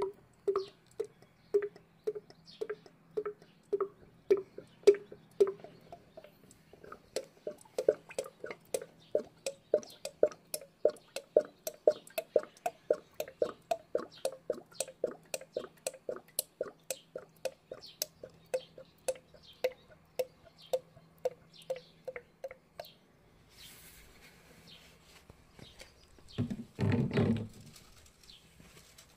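Engine oil glugging out of a plastic bottle as it pours, a regular run of gulps as air bubbles back into the bottle: about two a second at first, then about three a second. The glugging stops about two-thirds of the way through, and a short loud rumble comes near the end.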